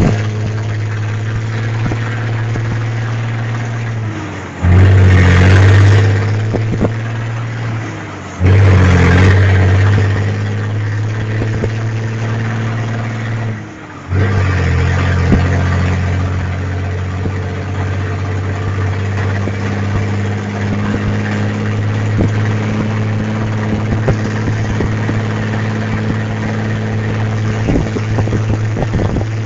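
Diesel engine of a Volkswagen Constellation truck on a straight exhaust pipe, running with a deep steady note and surging sharply louder twice as it is revved, about four and eight seconds in. It dips briefly around fourteen seconds, then carries on at a steady, louder run.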